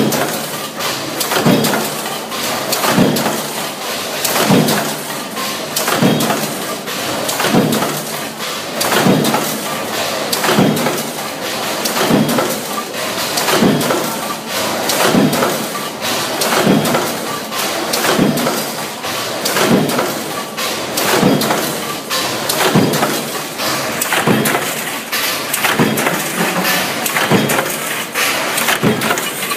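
Punch press on a junction box production line stamping parts from steel strip, its strokes coming in a steady rhythm a little more than once a second over continuous machine noise.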